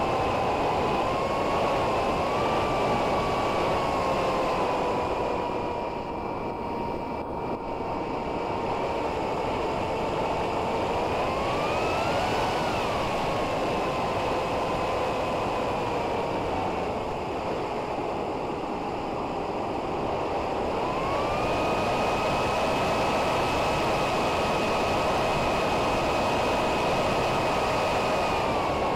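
Electric motor and propeller of a SkyZone Theer FPV flying wing whining in flight over a rush of wind, as picked up on board. The pitch climbs and falls back about twelve seconds in, then steps up about three quarters of the way through and holds higher until it drops near the end.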